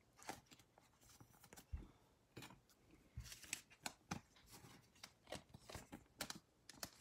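Faint, scattered rustles and light clicks of glossy trading cards being handled and slid into thin clear plastic card sleeves.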